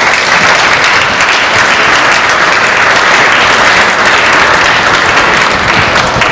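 Audience applauding, a dense steady clapping that dies down at the end.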